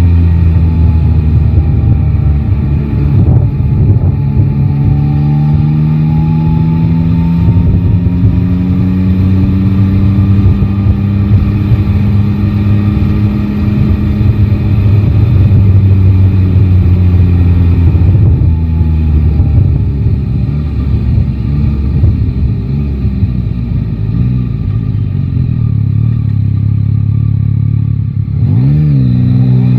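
Yamaha Tracer 9 GT's 890 cc inline three-cylinder engine running at steady riding revs, its pitch drifting slowly up and down. Near the end the revs drop briefly and then climb quickly as the bike accelerates.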